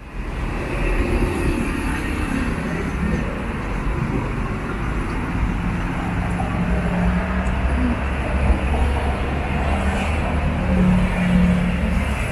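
Steady low rumble of street traffic, with a vehicle engine's hum that swells a little now and then.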